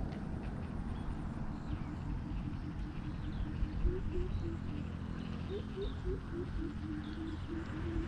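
An animal calling a rapid series of short, low notes, about three a second, which grow stronger about halfway through, over a steady low rumble, with faint bird chirps higher up.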